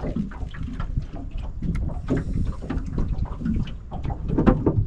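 Wind rumbling on the microphone around a boat on the water, with irregular small knocks and splashes.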